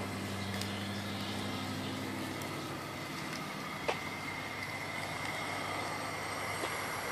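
Steady hiss and low hum around a steam donkey's vertical fire-tube boiler standing under steam near its 125 psi pop-off setting. The low hum fades out about five seconds in, a thin steady whistle-like tone runs under the hiss, and there is a single sharp click near four seconds.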